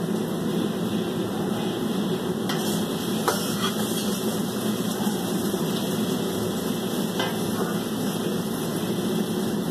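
A steady low mechanical hum, with a few faint knocks and clicks from kitchen utensils.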